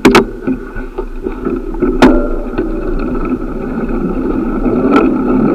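Riding noise from a bicycle ride: a steady road rumble that grows louder, with sharp knocks just after the start, about two seconds in and about five seconds in.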